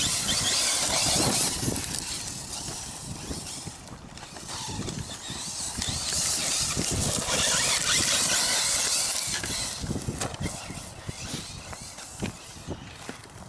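Electric 1/8-scale RC truggy driving hard over rocky, gravelly ground: a hiss of tyres churning and skidding through gravel, with many small knocks of stones and chassis hits. It comes in two louder runs, one at the start and one around the middle.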